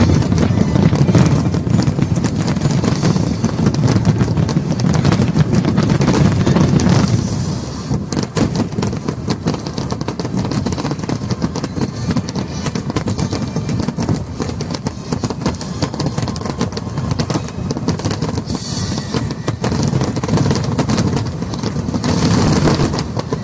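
Fireworks going off in rapid succession, dense bangs and crackling with music underneath. The explosions are heaviest for the first seven seconds or so, then thin to a steadier, slightly quieter crackle.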